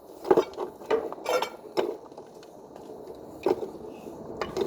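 Hand tools knocking, clinking and scraping on ceramic tile during tile repair: about six sharp strikes at uneven gaps, some with a short metallic ring.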